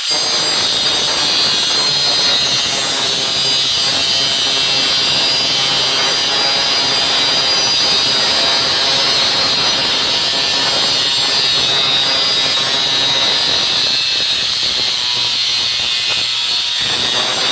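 Makita electric grinder with a cutting wheel running steadily as it cuts through the oversized edge of a laptop screen, a continuous high whine.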